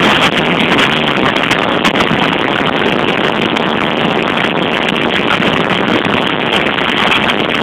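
Live rock band with electric guitar playing loud through a stage sound system, heard as a steady, dense wash with no clear tune standing out.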